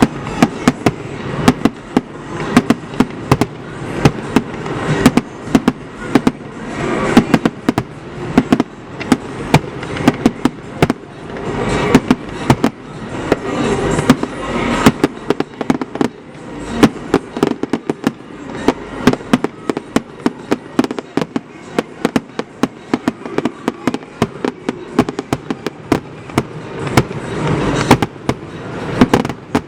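Fireworks display: a continuous barrage of sharp bangs and shell bursts, several a second, over a rolling rumble.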